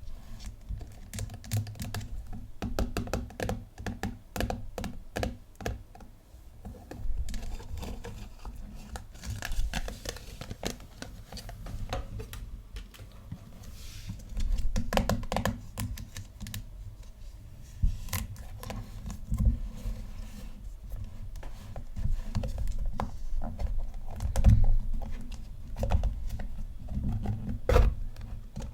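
Hands squishing, pressing and pulling sticky foam clay and slime, giving quick runs of small sticky clicks and crackles with a louder pop now and then.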